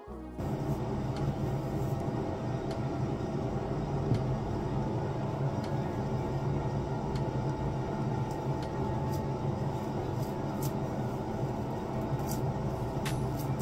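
A steady low mechanical hum at an even level, with faint light scratchy strokes of a bristle detangling brush pulled through conditioned hair, more of them near the end.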